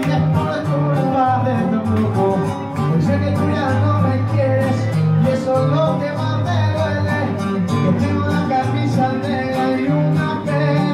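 Music with plucked guitar, a steady bass line, a regular beat and a singing voice.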